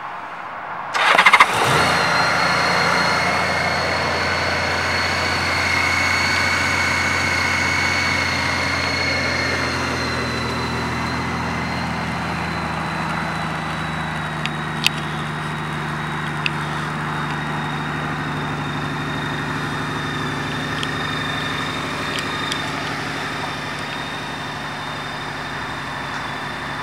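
Honda Gold Wing GL1800 trike's flat-six engine being started: the starter cranks briefly about a second in, the engine catches, and it settles into a steady idle. The idle drops to a lower, slower note around ten seconds in, with a couple of light clicks midway.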